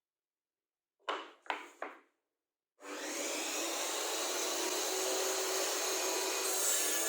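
Three short rasping strokes on wood, then from about three seconds in a steady, continuous noise of a power tool cutting or sanding wood.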